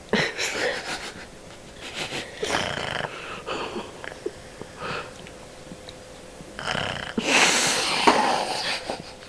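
Dog snoring in its sleep: irregular noisy snores every second or two, with a longer, louder one near the end.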